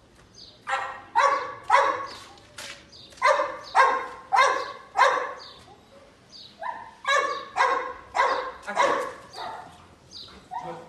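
A dog barking repeatedly, about two barks a second, in two runs with a short pause near the middle.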